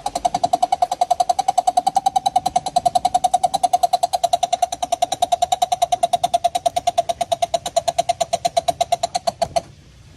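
A coucal calling: a long, rapid series of identical hoots at one steady pitch, about nine a second, that stops abruptly near the end.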